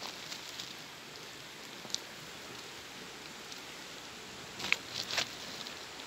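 Footsteps and stones shifting on loose river pebbles: a single sharp click about two seconds in, then three stony crunches close together near the end, over a steady background hiss.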